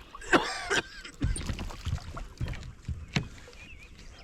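Dull knocks and thumps against a small boat's hull, several in a row, with a sharp click about three seconds in, as a just-caught fish is handled aboard.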